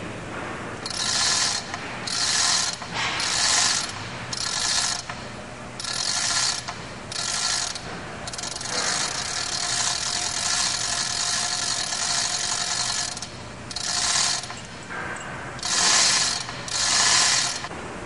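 Hand-operated chain hoist being worked, its chain rattling through the block in repeated pulls about a second long, with one longer unbroken run of several seconds midway.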